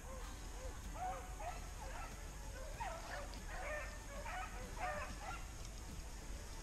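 Pack of rabbit hounds baying in the distance while running a cottontail's trail, their calls overlapping several times, thickest in the middle.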